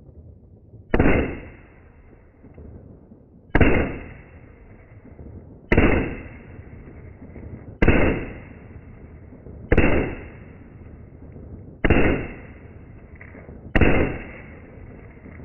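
Browning Buck Mark .22 LR pistol firing seven shots about two seconds apart, slowed down, so each sharp report trails off over about a second.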